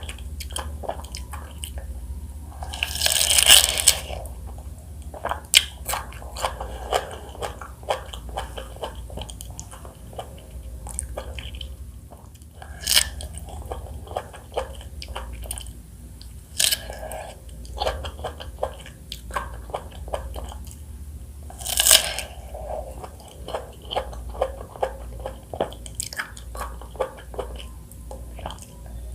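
Close-miked chewing and biting of juicy fresh fruit, wet crunching and smacking mouth sounds, with louder bites about three seconds in and again about twenty-two seconds in.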